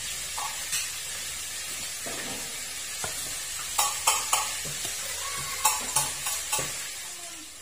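A metal ladle stirring macaroni salad in a stainless steel pot, over a steady hiss, with several sharp clinks of the ladle against the pot, most of them clustered about four and six seconds in.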